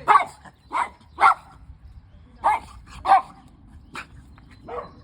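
Dogs barking: about seven short barks at uneven spacing.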